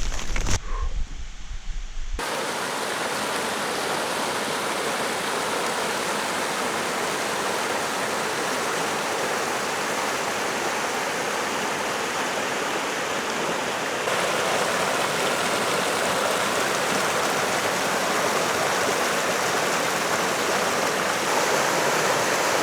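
Steady rushing of a mountain creek flowing over rocks, an even, unbroken wash of water noise. It sets in abruptly about two seconds in, after a brief low rumble, and grows slightly louder about two-thirds of the way through.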